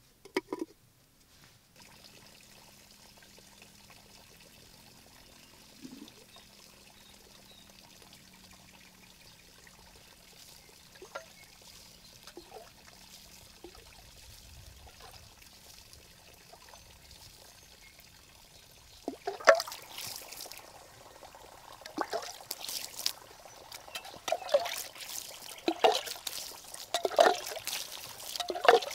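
Water scooped from a clay pot and poured by hand onto dry soil, in a run of repeated pours and splashes that begins about two-thirds of the way in. Before that it is quiet, apart from a couple of sharp knocks near the start.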